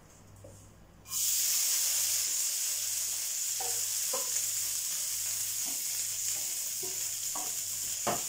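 Grated coconut, dried red chillies and curry leaves dropped into hot sunflower oil in a frying pan, starting a loud, steady sizzle about a second in. A wooden spatula scrapes the coconut off a steel plate into the pan, with a few light knocks against the metal.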